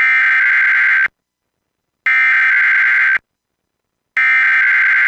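Emergency Alert System SAME header: three buzzy bursts of digital data tones, each about a second long with about a second of silence between. This is the coded header that opens a weekly EAS test and carries the alert's type and area.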